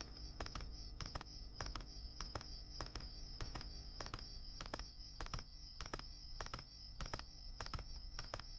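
Night-time ambience: insects trilling steadily at a high pitch, with irregular crackling clicks several times a second.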